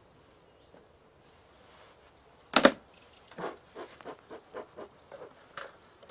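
A bee smoker's hinged metal lid snapping shut with one loud clack. Then its bellows are pumped in a run of short puffs, about three a second, blowing out smoke.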